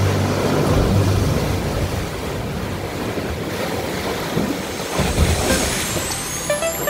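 Ocean swell surging into a sea cave at the foot of a rock cliff and breaking inside it: a continuous rushing wash of seawater.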